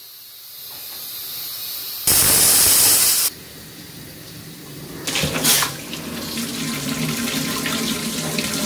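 Stovetop pressure cooker hissing, then one loud whistle of escaping steam lasting about a second. Then a tap runs, with water splashing over the closed cooker held beneath it to cool it right after its first whistle, which stops the pasta from overcooking.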